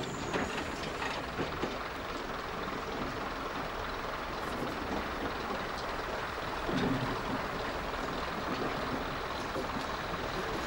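Diesel multiple unit moving slowly, its engine and running noise steady, heard through an open carriage window, with a few sharp clicks in the first second or so and a brief louder patch about seven seconds in.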